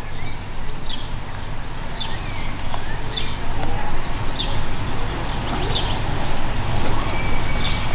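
Small birds chirping with short, repeated falling calls over a steady low rumble, with a rapid high-pitched ticking for the first couple of seconds.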